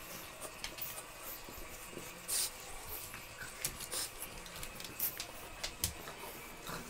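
Soft rustling with scattered light clicks and scratches as French bulldog puppies shuffle about on a blanket, with one short, louder hissing rustle about two and a half seconds in.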